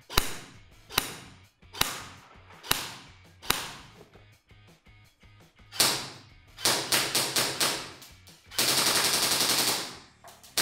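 G&G GR4 G26 airsoft electric rifle firing. Its V2-type gearbox has air-driven blowback. It fires five single shots about a second apart, then a quick string of shots, then one long full-auto burst near the end.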